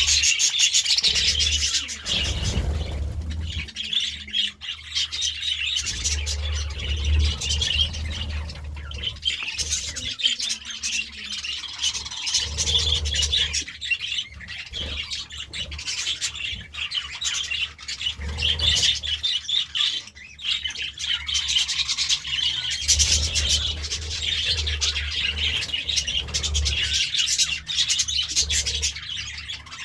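Budgerigars chirping continuously, many quick high calls overlapping, with a low hum underneath that comes and goes.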